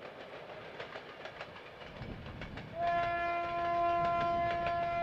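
Train running on rails with a rhythmic clickety-clack. About three seconds in, a long steady whistle tone starts and holds.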